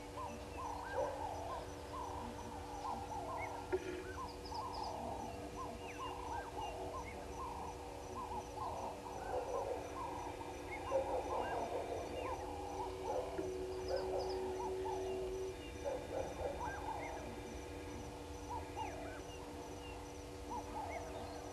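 A busy chorus of wild birds calling, with many short overlapping low whistled and cooing notes, over a steady faint hum.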